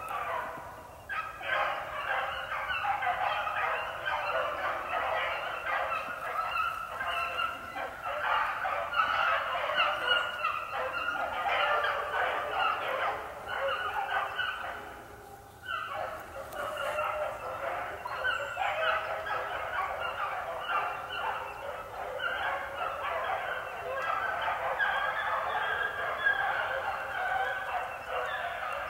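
A pack of young beagles baying as they run a rabbit's trail, many voices overlapping in a continuous chorus. It dips briefly about a second in and again about halfway through.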